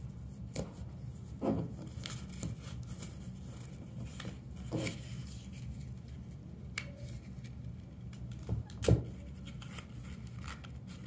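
Small, irregular clicks and rustles of paper and tape being handled and pressed together on a tabletop, over a faint steady low hum.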